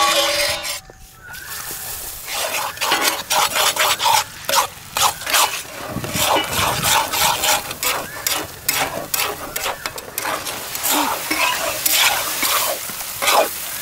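Food frying in hot oil in a large metal wok, sizzling and crackling, with a metal spatula scraping and stirring against the pan. It opens with a brief loud burst.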